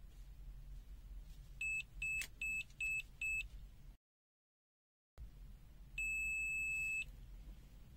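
ANENG SZ06 digital multimeter's buzzer: five short high beeps in quick succession, then a few seconds later one long beep lasting about a second. This is the meter's warning ahead of auto power-off after 15 minutes unused, then its shut-off beep.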